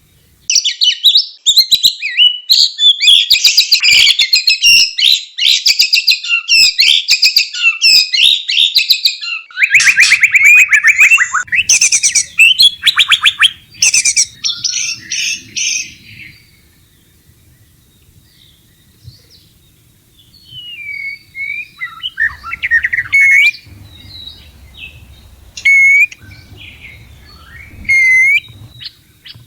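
White-rumped shama in breeding condition, singing a dense run of loud, fast, varied whistles for about sixteen seconds. Partway through, the song breaks into a rapid clicking rattle. It then falls away to scattered, quieter single whistled calls.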